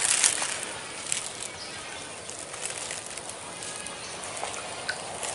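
Pond water splashing briefly at the start, fading into a steady faint outdoor hiss with a few small clicks.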